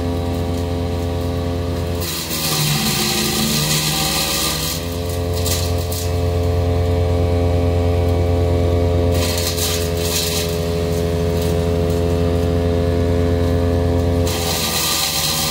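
Big Bear Power BBC-62 wood chipper's engine running steadily, then bogging down as branches are fed in. About two seconds in, its pitch sags while the chipper shreds wood with a loud hissing crunch for several seconds; the engine recovers, and near the end another load drags it down again.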